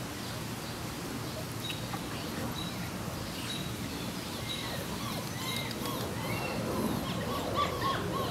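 Steady outdoor background noise with faint, short high chirps scattered through it. A few more small squeaky calls come in the last few seconds.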